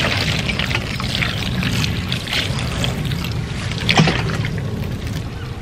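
Water pouring from a watering can onto loose soil and freshly planted spring onions: a steady splashing trickle over a constant low rumble.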